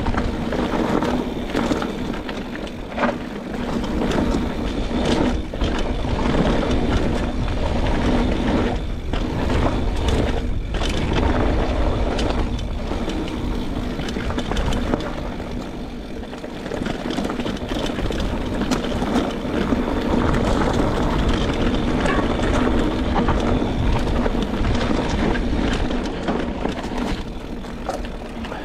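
Mountain bike descending a dirt trail: tyres rumbling over the ground and the bike clattering with frequent sharp knocks, over a steady low rush of wind on the microphone.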